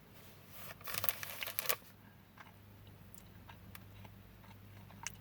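Plastic packaging crinkling as it is handled, in a short crackly rustle about a second in, then a few faint clicks over a low steady hum.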